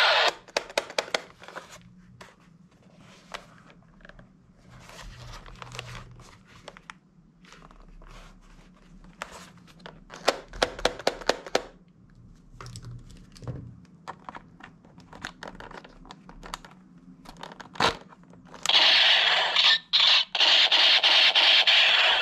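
Hard plastic toy rifles being handled, rattling and scraping, with scattered sharp clicks including a quick run of about six clicks. About three-quarters of the way through, a loud electronic machine-gun sound effect starts up from a battery-powered toy rifle and runs on with two brief cut-outs.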